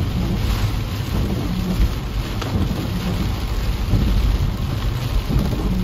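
Heavy storm rain pelting a car's windshield and roof, heard from inside the car, with a steady low rumble underneath.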